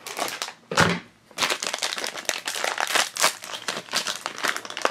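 Foil blind-bag packet crinkling and crackling in quick, dense strokes as it is torn open and handled, with one louder crackle just under a second in.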